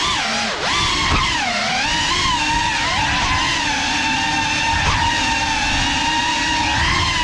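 Geprc Cinelog 35 cinewhoop's brushless motors and ducted propellers whining in flight. The pitch rises and falls with the throttle, dipping about a second and a half in and then holding fairly steady.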